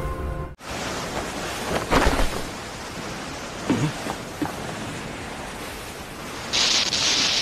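Steady rushing noise ambience from an anime soundtrack, with a few faint short sounds about two and four seconds in and a brighter hiss coming up near the end.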